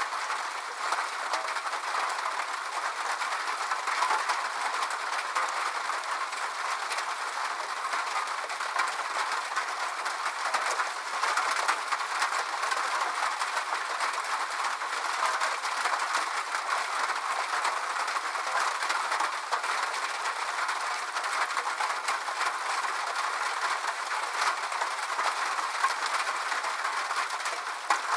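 Steady rain falling on a roof: a dense, even patter of drops that keeps up without a break.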